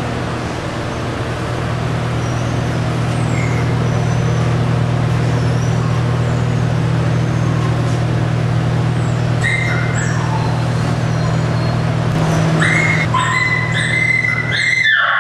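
Dogs whimpering and yipping in short, high-pitched cries, sparse at first and coming thick and fast in the last few seconds, over a steady low mechanical hum.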